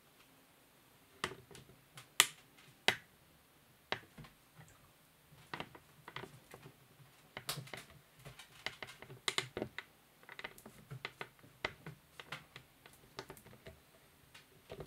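Kittens' paws and claws, and a feather wand toy, tapping and scratching on a hard laminate tabletop during play: irregular sharp clicks. The loudest few come in the first three seconds, and from about five seconds in they come in a busy, uneven run.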